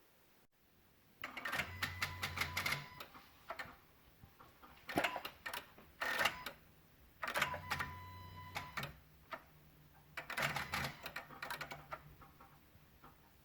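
Rapid electrical clicking, like a chattering relay, in about five bursts of a second or so each, with a low hum under some of them. It comes from near the PCM and VSA control module of a 2016 Honda Odyssey with the engine off and the engine, VSA, LDW and FCW warning lights on.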